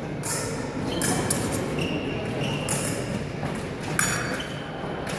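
Steel épée blades clashing: several sharp metallic clinks with brief ringing, a cluster in the first second or so and another about four seconds in.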